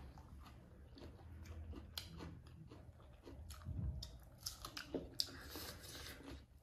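Faint, close chewing and mouth sounds of people eating rice and pork curry by hand, with scattered small wet clicks and smacks.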